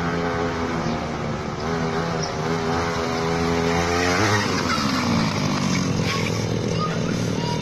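Small grass-cutter engine of a homemade motorbike running steadily, revving up sharply about four seconds in, then dropping back and running steady again.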